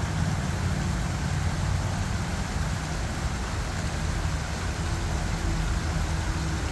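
Small waterfall rushing steadily, a dense even noise of falling water with a strong low rumble.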